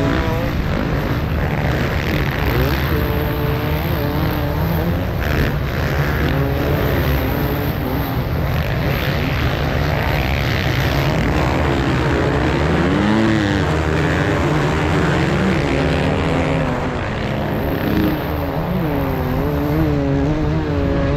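Beta 300 RR two-stroke enduro motorcycle engine running hard at race speed on sand, its pitch rising and falling with throttle and gear changes, under heavy wind rush on the camera.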